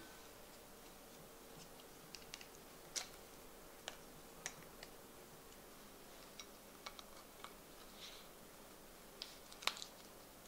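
IKEA glass food containers and their lids handled on a countertop: scattered faint clicks and clinks of glass and lid, the sharpest about three seconds in and again near the end, over a quiet room hiss.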